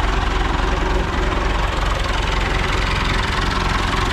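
Massey Ferguson 575 tractor's four-cylinder Perkins diesel engine running steadily with an even, low pulsing beat.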